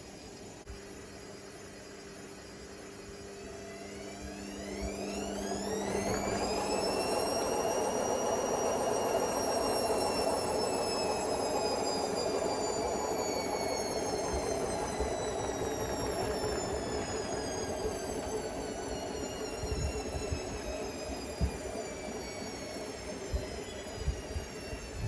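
Hotpoint Smart Tech WMFUG742 washing machine spinning up on its final spin with a load of bricks in the drum: the motor's whine climbs steeply a few seconds in, then sags slowly in pitch over a steady rushing drum noise. A few low knocks come near the end.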